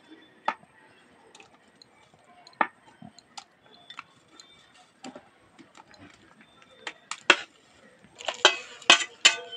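Metal spatula clinking against a steel bowl and a wok as fried chicken pieces are scooped out and dropped into masala gravy: scattered single clicks, then a busier run of clatter near the end.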